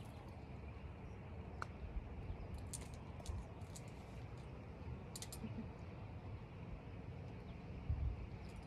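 Light metallic clicks and clinks of trad climbing gear, carabiners and protection on a harness rack, coming in a few short clusters about a second and a half in, around three seconds and around five seconds. A soft low bump comes near the end, over a low rumble of wind on the microphone.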